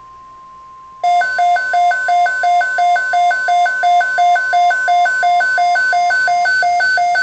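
NOAA weather radio sounding a severe thunderstorm watch alert. It opens on the broadcast's steady single-pitch warning tone, then about a second in the radio's own loud alarm starts: rapid beeps alternating between a low and a high pitch, about three pairs a second. The steady tone underneath stops near the end.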